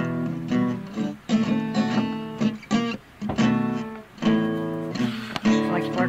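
Background music: an acoustic guitar playing, strummed and plucked chords.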